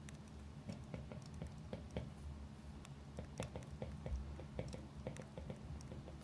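Campfire crackling: irregular sharp pops and snaps, several a second, over a low steady hum.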